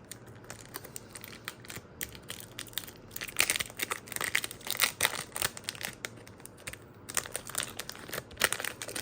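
Foil wrapper of a One Piece Card Game booster pack being torn open and crinkled by hand, in irregular spells of crackling that are thickest in the middle and again near the end.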